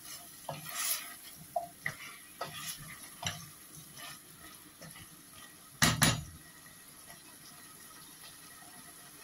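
Wooden spoon stirring a curry in a stainless-steel pot, with soft scrapes and small knocks against the pot over a faint sizzle. About six seconds in come two sharp knocks in quick succession, the loudest sounds.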